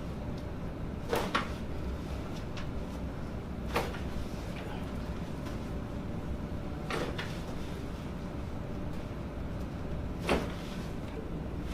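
Sharp cracks of spinal joints popping during chiropractic adjustments: two in quick succession about a second in, then one every three seconds or so.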